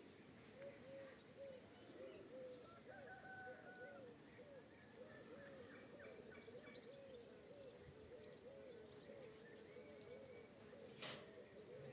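Domestic chickens clucking softly in a long run of short, repeated low calls, about two to three a second, with fainter small-bird chirps above them. A single sharp click near the end.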